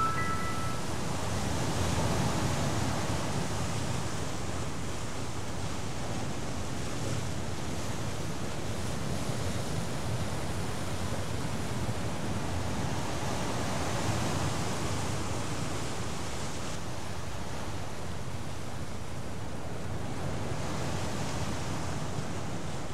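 Sea surf with wind: a steady rush of waves washing in, swelling and fading every several seconds.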